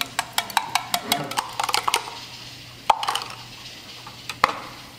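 Eggs being beaten with a metal utensil in a glass measuring jug. The utensil clicks quickly against the glass, several times a second for about two seconds, then gives a few scattered clinks.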